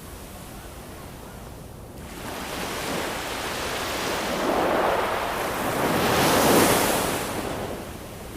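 Ocean waves: a wave swells in about two seconds in, breaks with a rush of surf loudest near the end, then washes back and fades.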